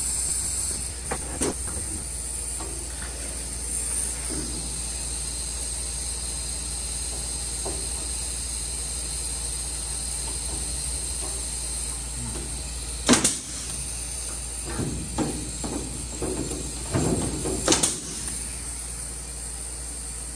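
Pneumatic rivet puller setting two blind rivets in an aluminium aircraft wing, each a short sharp hissing snap, about four and a half seconds apart, with lighter knocks and rustling of handling between them over a steady hum and hiss.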